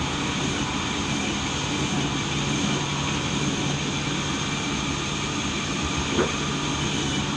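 Sawmill machinery running with a steady drone and a constant low hum. A brief sharp sound cuts in about six seconds in.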